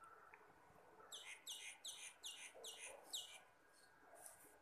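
A bird calling a quick run of about seven short, high chirps, each sliding down in pitch, about three a second, then stopping.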